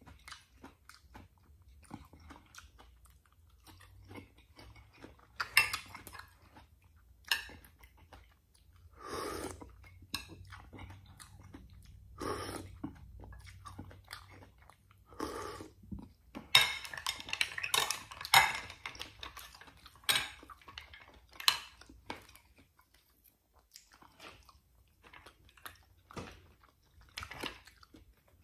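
A person chewing and biting food, with crunchy bites of fried milkfish, rice and mussels, and now and then a light clink of a spoon or shells against a glass dish. The chewing comes in uneven spells, busiest about two-thirds of the way in.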